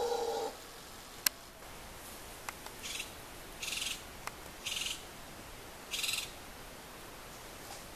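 A howler monkey's low, pitched call stops about half a second in. After that come a sharp click and four short hissing bursts of high sound, each about a third of a second long.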